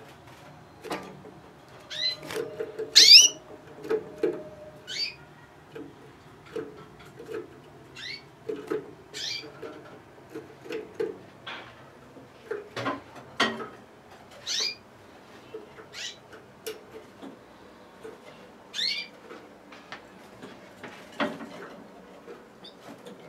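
Caged Gloster canaries giving short, separate chirping calls, each a quick downward sweep in pitch, scattered every second or so. A few sharp taps or knocks from the cage come in among them.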